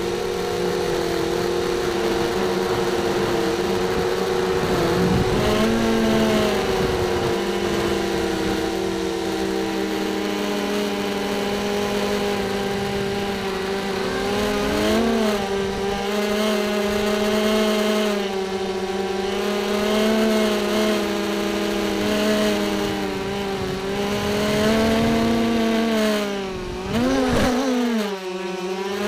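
Racing quadcopter's brushless motors and propellers whining, recorded close on the drone itself. The pitch shifts with the throttle, with a sharp dip and climb near the end.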